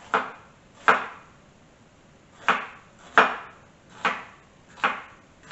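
A kitchen knife slicing a jalapeño pepper on a wooden cutting board. It makes six sharp chops against the board at a slow, uneven pace, with a pause of about a second and a half after the second chop.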